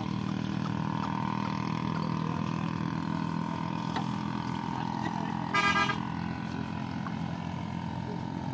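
A steady low engine hum throughout, with a short single vehicle horn honk about five and a half seconds in.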